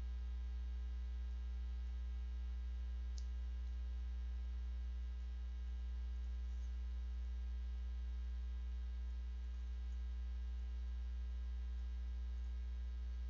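Steady electrical mains hum in the recording: a strong constant low drone with a stack of fainter steady tones above it. One faint tick comes about three seconds in.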